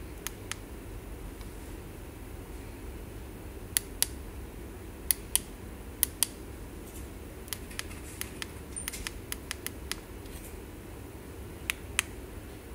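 Buttons of a handheld remote control clicking as they are pressed: several pairs of sharp clicks, each pair a press and a release, and near the middle a quicker run of lighter clicks, about four a second. Under them runs a steady low room hum.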